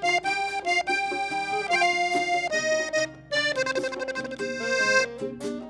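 Instrumental break of a live band: an accordion leads the melody in held and moving notes, with alto saxophone and a bass line beneath, the music dipping briefly about three seconds in.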